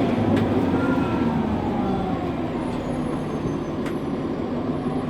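Nova Bus LFS city bus engine and drivetrain heard from inside the cabin, a steady low rumble whose pitch slides gradually downward over the first few seconds. A couple of sharp rattles from the bus interior are heard along the way.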